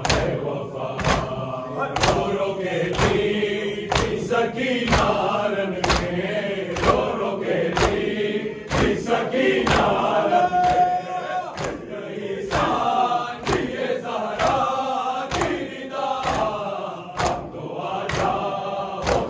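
A group of men chanting an Urdu noha (Muharram lament) in unison, with a sharp, steady chest-beating strike (matam) about once a second keeping the beat.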